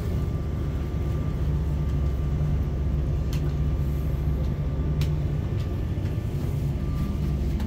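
Steady low rumble with a faint steady hum above it, and two light clicks about three and five seconds in.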